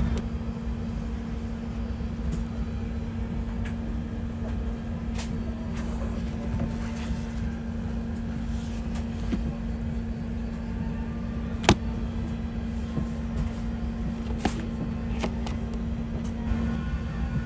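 Steady low rumble and hum in the cabin of an Airbus A380 parked before departure, with a few sharp clicks from the seat's console lids and items being handled, the loudest about two-thirds of the way in.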